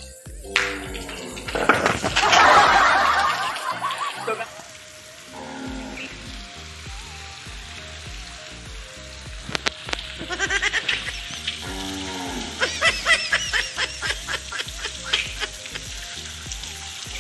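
Background music over the hiss of water spraying from a frame of perforated pipes mounted over a bicycle.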